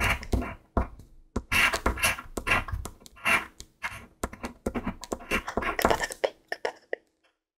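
Close-miked scratching of a Speetto instant lottery ticket: quick, irregular scrapes across the scratch-off coating that stop about seven seconds in.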